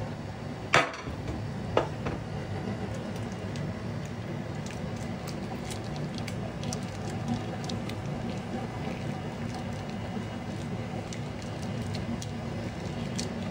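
Two sharp knocks about a second apart near the start, from the steel pot being moved off the foil tray. Then faint crinkling of a foil pouch of Velveeta cheese sauce being squeezed out by hand, over a steady low hum.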